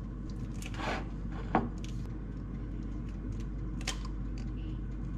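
An egg being tapped on a bowl's rim and its shell cracked open: a few light, sharp taps and cracks, over a low steady hum.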